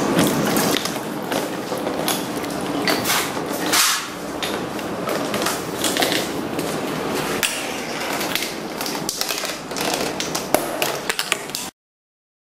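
A home-built chain-reaction machine running: an irregular stream of clicks, taps and knocks from its small parts rolling and striking, over a steady noisy background. The sound cuts out completely for a moment near the end.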